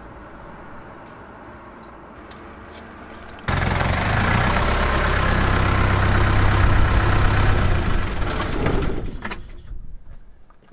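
Land Rover Perentie's Isuzu four-cylinder diesel engine idling, cutting in suddenly a few seconds in. Near the end it dies away as the engine is switched off.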